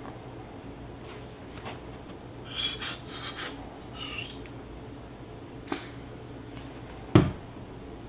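Handling noise as white glue is squeezed from a plastic squeeze bottle onto a small balsa stick: a few short scratchy rubs in the middle, a click, and one sharp knock near the end, which is the loudest sound.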